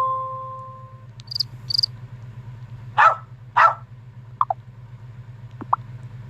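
Samsung Galaxy S21 notification sounds played one after another: a fading tone, two quick high chirps, two louder noisy sounds about half a second apart, then a few short blips, over a steady low hum.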